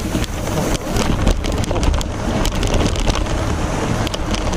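Wind buffeting the microphone over a low rumble, with scattered knocks and clicks from a four-wheel-drive electric trike working up a steep slope.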